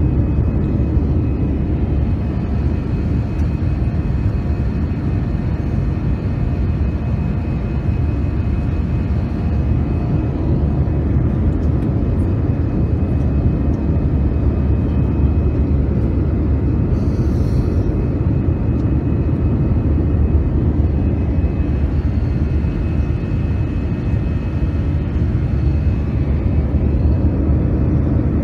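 Steady engine and airflow drone of an Airbus A320-200 in flight, heard from a window seat inside the cabin. A brief high hiss sounds about two-thirds of the way through.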